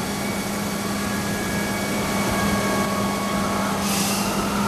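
Truck engine running with a steady drone and road noise; a short hiss about four seconds in.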